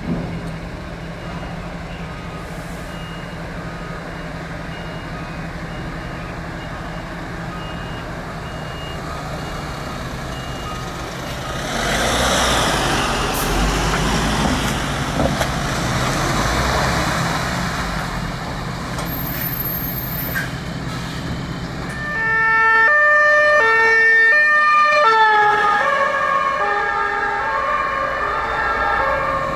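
Emergency vehicles on a call: a diesel engine idles, and an ambulance drives past with a swell of engine and tyre noise. About three quarters of the way through, a German two-tone siren (Martinshorn) starts loudly, alternating between its two pitches.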